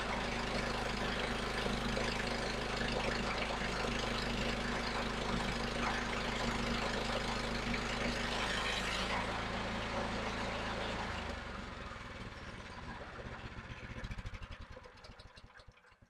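Portable bandsaw sawmill's engine running at full throttle while the band blade cuts through a log. About nine seconds in, the cutting noise eases. The engine then winds down, its firing slowing to separate pulses until it stops near the end.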